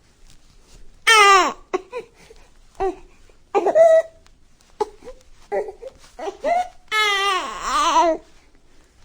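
A baby babbling and fussing in short, high-pitched sounds, with a loud falling cry about a second in and a longer wailing cry near the end.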